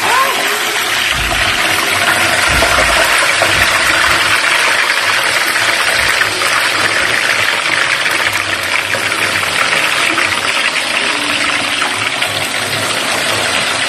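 Raw banana slices deep-frying in a pan of hot oil, a loud, steady sizzle as fresh slices are spooned in. A few low bumps in the first few seconds.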